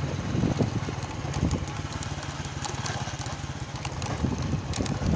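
Motorcycle engine running steadily as the bike rides along, a low even drone.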